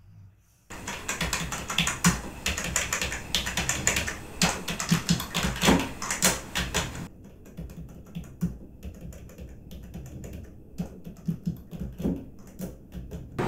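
Fast typing on a computer keyboard, a dense run of loud key clicks. About seven seconds in it turns into the same typing heard with active noise cancellation on: sparser, quieter, duller clicks.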